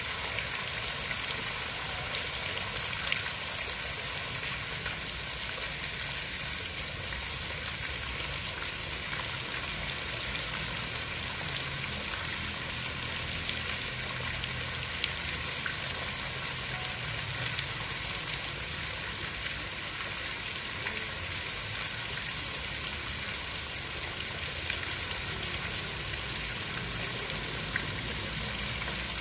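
Steady hiss of water, even and unbroken, with a low rumble beneath and a few faint ticks.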